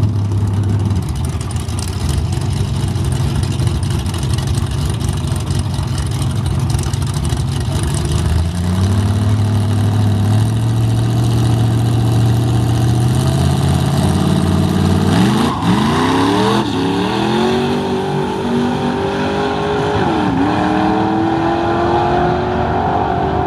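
Drag-racing mini pickup trucks' engines idling at the starting line, then brought up to a higher steady rev about a third of the way in. Just past halfway they launch at full throttle, the engine pitch climbing with sharp drops at two gear shifts as the trucks pull away down the strip.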